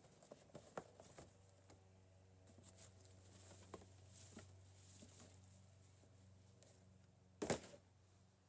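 Faint clicks and taps of items being handled, then a single louder knock about seven and a half seconds in, over a low steady hum.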